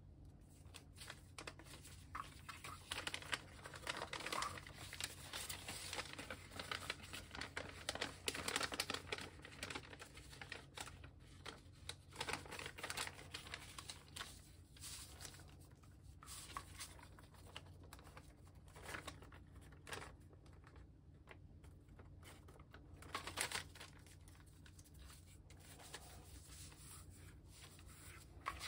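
A large sheet of origami paper rustling and crinkling as it is folded and creased by hand, in irregular bursts with quieter spells between.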